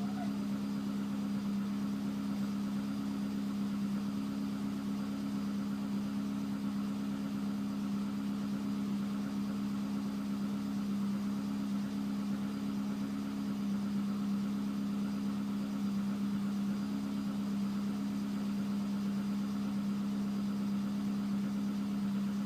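Car engine idling steadily while cold, the state in which its owner hears a knock.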